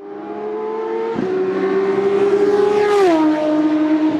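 High-revving racing-car engine, likely an intro sound effect, growing louder as it approaches. There is a short break in the note about a second in, and the pitch drops sharply as it passes about three seconds in.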